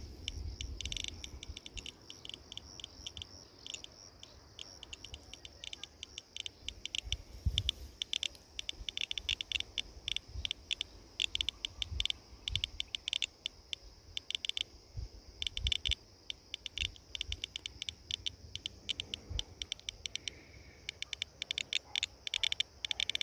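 Rapid, irregular clicks from a handheld gamma radiation detector, each click a detected gamma photon. The rate matches a background dose rate of about 0.10 microsieverts per hour from the field's soil.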